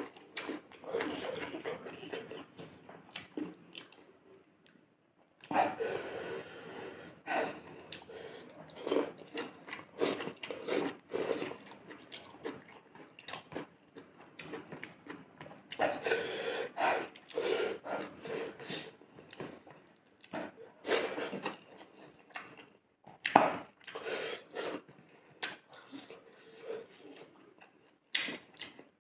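Close-miked mouth sounds of someone chewing a meal of rice and fish curry: wet smacks and clicks coming irregularly, with a short pause about four seconds in.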